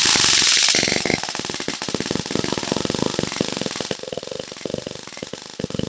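Electric-shock flashlight (stun torch) arcing between its electrodes: a continuous rapid crackle, strongest for the first second, then weaker and uneven. A slip of paper is held in the arc and does not catch fire.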